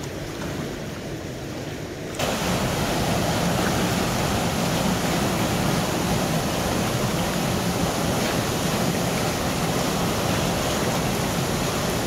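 Fast brown floodwater rushing and churning. About two seconds in it turns suddenly louder and fuller: water pouring through the openings of a concrete sluice structure and boiling up in white water below.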